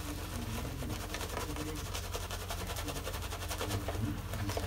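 Silvertip badger shaving brush swirling shaving soap lather on a stubbled face: soft wet squishing with a steady patter of tiny crackles as the lather builds.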